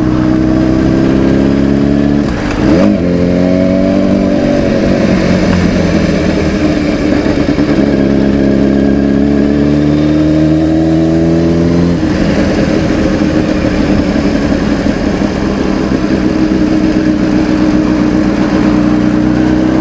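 Sport motorcycle engine running at low town speed, its pitch rising and falling with the throttle. There is a shift in the note about three seconds in and a sudden drop about twelve seconds in.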